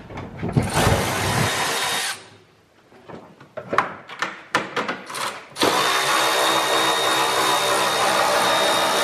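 A power tool runs in a short burst, then scattered clicks and knocks of tools, then a power tool starts about halfway through and runs steadily.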